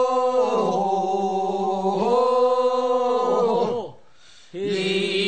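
Unaccompanied voices chanting the refrain of a Korean funeral bier song (sangyeo-sori), holding long drawn-out 'ho' vowels in two phrases. The singing breaks off about four seconds in and starts again half a second later.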